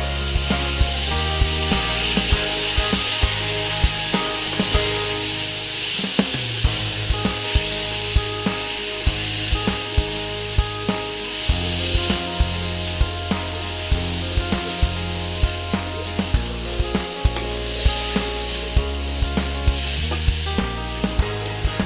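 Pork, tomatoes and shrimp paste sizzling in a wok while a plastic spatula stirs and scrapes them against the pan, over background music with a steady beat.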